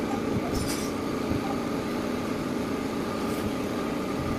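Steady low mechanical rumble in the background, with a couple of faint light ticks.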